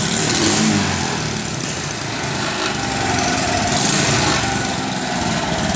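Honda Supra X 125's small single-cylinder four-stroke engine running steadily.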